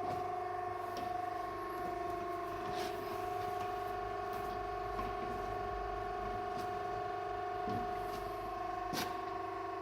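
Škoda SRM 100/4000 centre lathe running: a steady machine hum made of several steady tones, with a few faint clicks.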